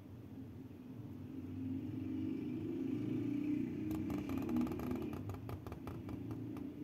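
Felt-tip calligraphy pen scratching across paper in a quick run of small scratches near the end, over a low rumble that swells and then fades.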